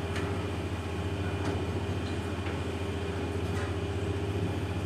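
Automatic roti-making machine running with a steady mechanical hum from its electric conveyor motor, with a few faint ticks.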